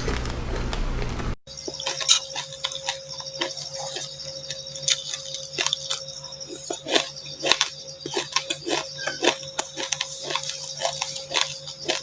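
Close-up crunching of dry chilli seeds and buckwheat being chewed: many sharp, irregular cracks and clicks. A faint steady hum runs underneath, and a denser, noisier stretch ends abruptly about a second in.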